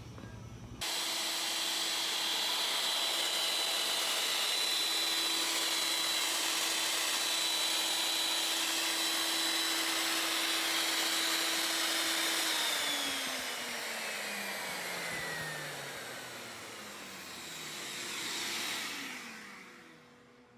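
A workshop machine's motor running steadily with a loud, even rushing noise and a steady whine. About twelve seconds in it is switched off and winds down over several seconds, its whine falling in pitch until it fades out.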